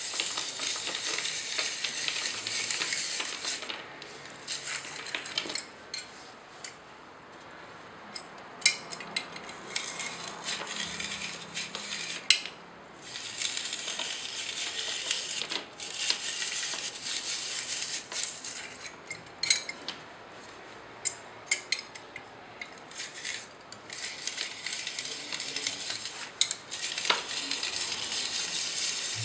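Stainless-steel rotary grater cranked by hand, its drum rasping through a carrot in spells of a few seconds, with short pauses and sharp clicks between them.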